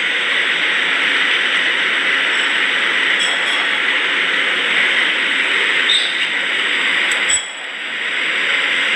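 Milling-cum-drilling machine with an ISO 40 spindle, running and cutting a hole in a metal plate on automatic down feed: a steady, loud machining noise. It dips briefly about seven seconds in and builds back.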